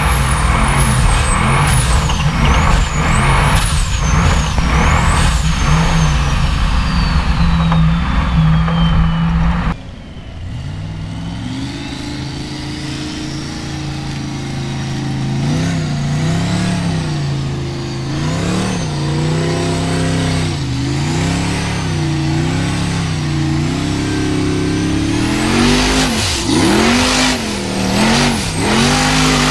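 Formula Offroad buggy's engine at full throttle on a hill climb. It is loud and close at first, with a high whine that rises and falls with the revs. After a sudden cut about ten seconds in it is heard from outside, revving up and down again and again as the buggy fights its way up the dirt slope.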